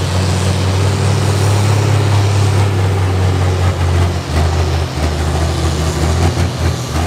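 Pro Stock pulling tractor's turbocharged diesel engine running loud with a steady low drone, which drops a little in pitch about four seconds in.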